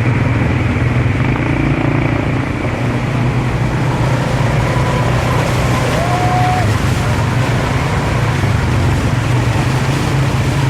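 A vehicle engine running steadily under way, with a constant low hum and rushing road or wind noise.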